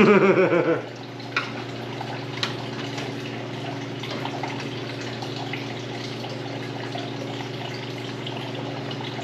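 A steady motor hum from a running machine, with a short, loud sound falling in pitch at the very start and a couple of light clicks afterwards.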